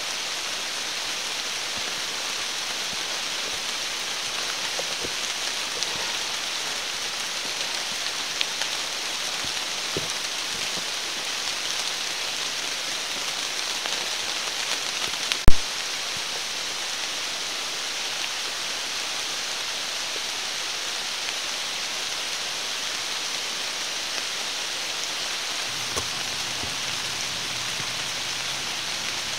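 Steady rain falling through forest, a constant hiss with scattered drip ticks, and one sharp loud knock about halfway through.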